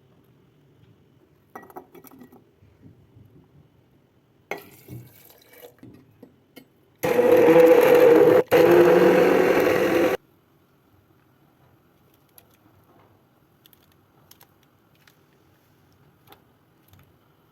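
Electric kitchen blender running for about three seconds, switched off for an instant and straight back on partway through, then cut off. Before it, a few light knocks and clatters from handling kitchenware.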